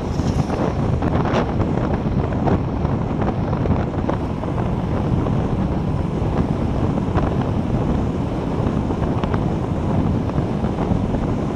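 Wind buffeting a handlebar-mounted action camera's microphone as a road bike rolls along asphalt: a steady low rumble of wind and tyre noise with a few faint clicks.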